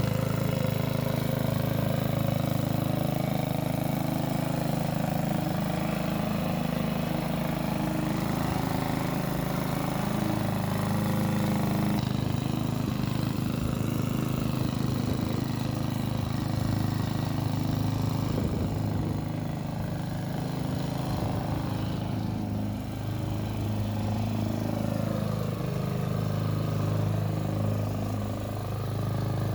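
Hyundai HY145V petrol lawn mower engine running steadily at working speed. Its pitch wavers and dips slightly a few times in the last several seconds.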